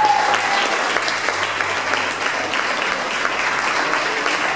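A roomful of people applauding, dense steady clapping.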